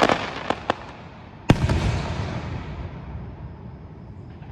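Aerial fireworks bursting: a few sharp pops in the first second, then one loud boom about a second and a half in that rumbles away slowly.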